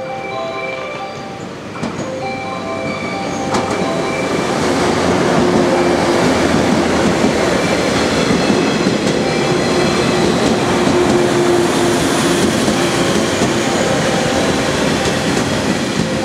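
A station chime melody plays for the first few seconds, then a JR West 115-series electric train pulls in along the platform: a swelling rumble of wheels clicking over rail joints, with a steady low whine while it slows, easing near the end.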